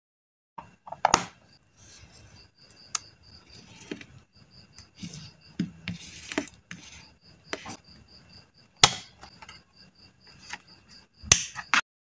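Close-up paper-crafting handling sounds: tweezers and fingers clicking and tapping on a clear plastic sticker box, with light rustling of stickers and paper as a sticker is lifted and pressed onto a journal page. Sharp clicks come about a second in, near nine seconds, and twice close together near the end.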